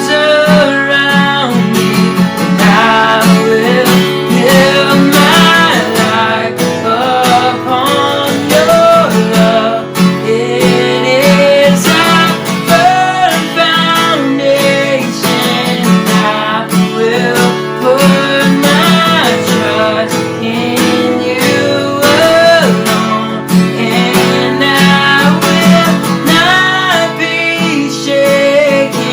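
Acoustic guitar strummed in a steady rhythm, with a singer's voice carrying a worship-song melody over it.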